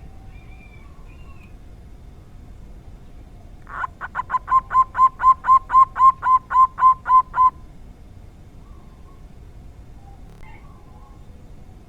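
Zebra dove (perkutut) cooing a fast, even run of about sixteen notes, roughly four or five a second for three and a half seconds, starting about four seconds in. Faint chirps of other small birds come before and after.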